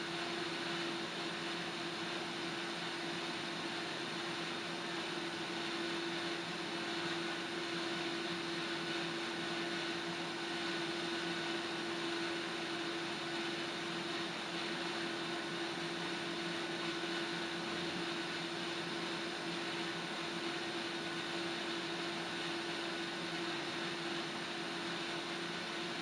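Steady hiss of a gas stove burner heating water, with a faint steady low hum under it; no whistle sounds.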